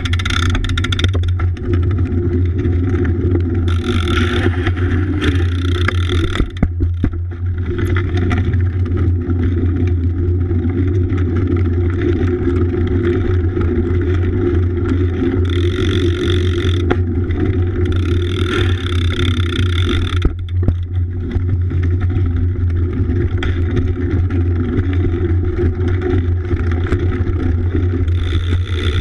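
BMX bike ridden over wet pavement, picked up by a camera mounted on its frame: a steady low rumble of tyres and frame, with a hiss of tyre spray that swells several times.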